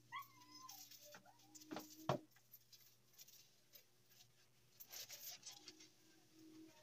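Near silence with faint handling sounds of soapy hands lathering a wet dog's fur, a few small clicks, and a brief faint whine near the start.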